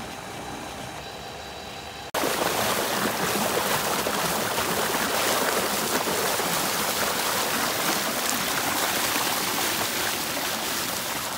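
Pumped water gushing from a pond pump's discharge pipe into a tarp outlet basin, splashing and pouring over its rim in a steady rush. It starts suddenly and loud about two seconds in, after a quieter stretch with a faint steady hum.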